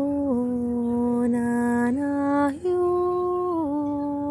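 A woman's voice chanting long held notes without words, the pitch stepping down, then back up, with a brief breath about two and a half seconds in.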